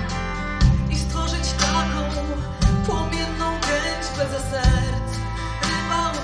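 Live band music heard over the PA: acoustic guitar and violin accompany a woman singing a slow melody, with a heavy low note about every two seconds.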